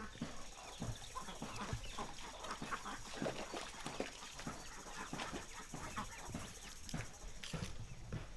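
Chickens clucking, with the regular footsteps of a person walking.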